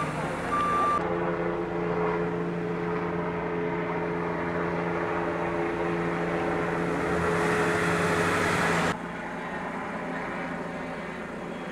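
Ambulance reversing beeper sounding once near the start, then the ambulance's engine running with a steady drone. About nine seconds in the sound drops suddenly to a quieter, steady vehicle noise.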